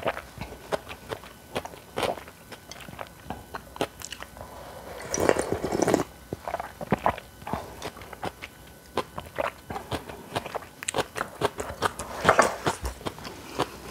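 Close-miked eating of cold noodles and kimchi: repeated crunching bites and chewing, with a longer, denser stretch about five to six seconds in and another loud bite near the end.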